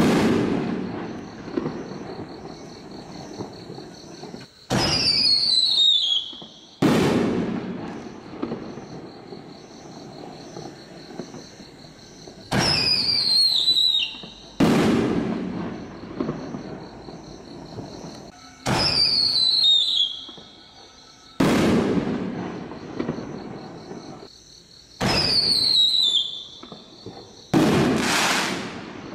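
Aerial firework shells fired one after another, about every six seconds. Each goes up with a whistle that falls in pitch, then breaks about two seconds later with a loud bang that rolls away over several seconds. There are four such launch-and-burst pairs, with the tail of an earlier burst at the very start.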